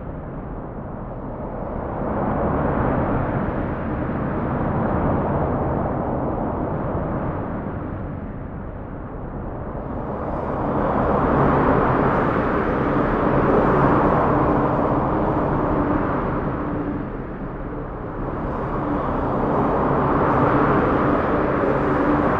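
Horror sound effect: a dark, rumbling noise that swells and fades in slow waves several seconds long, with a faint low hum underneath.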